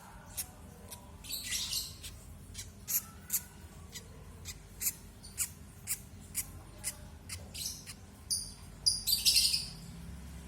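Two-day-old lovebird chicks peeping to beg for food: short, thin, high peeps about twice a second. Louder, scratchier calls come about a second and a half in and again near the end.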